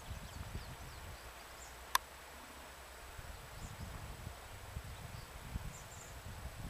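Rural outdoor ambience: faint bird or insect chirps over a low rumble, with one sharp click about two seconds in.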